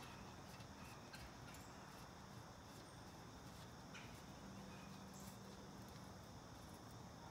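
Near silence with a few faint, light clicks, as a spindle nut is spun onto a wheel spindle by hand.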